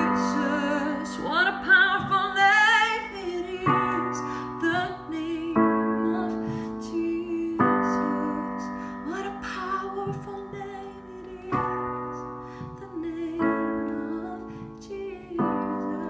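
Digital piano playing slow sustained chords that change about every two seconds, with a woman's voice singing soft wavering wordless lines over them in places. The music gradually gets quieter.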